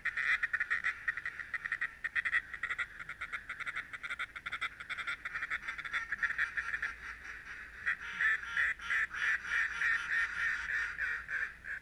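A flock of ducks quacking and chattering together in a dense, unbroken stream of rapid calls, which stops abruptly at the end.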